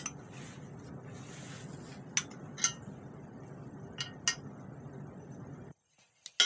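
Hand tools clinking against the steel studs on a bicycle fork: a few short, sharp metal clinks spaced irregularly over a steady background hiss. The sound cuts off abruptly near the end.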